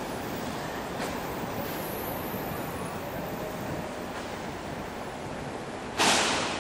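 City street ambience: a steady wash of traffic noise, with a sudden loud burst of noise near the end that fades over about half a second.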